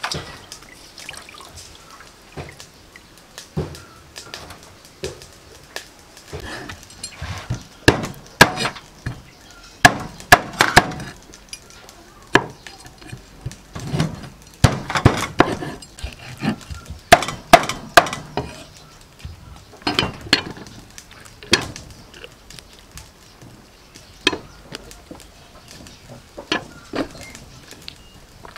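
Cleaver chopping chicken feet on a wooden chopping block: sharp knocks in irregular clusters, several strikes close together, with pauses between groups.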